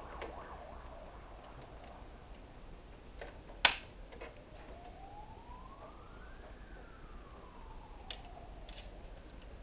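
A single sharp plastic click as an HP 02 refill cartridge snaps into the HP Photosmart D7260 printer's carriage, among a few faint handling knocks. Then a siren rises slowly in pitch and falls again.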